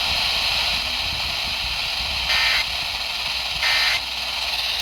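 Radio static hiss, broken by two short, buzzy data bursts a little over a second apart, each about a third of a second long. These are the Emergency Alert System end-of-message codes (SAME "NNNN" bursts) that close a broadcast alert.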